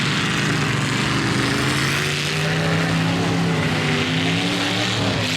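Demolition derby car engines running and revving, their pitch rising and falling.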